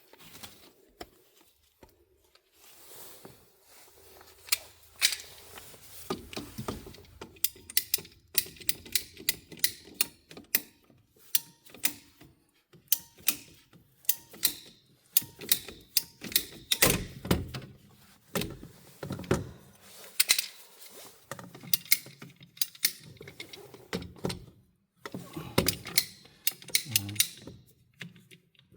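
Hand tools at work on furnace ductwork: a long, irregular run of sharp clicks, snaps and knocks, sparse at first and coming thick and fast from about seven seconds in.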